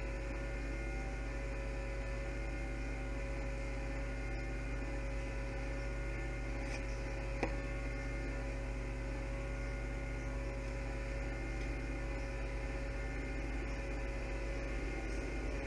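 Steady electrical mains hum made of several held tones, with one sharp click about halfway through.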